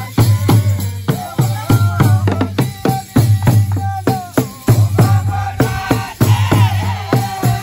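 Traditional Rwandan ingoma drums beating a fast, steady rhythm, about four strokes a second, with voices singing a held, wavering line over them.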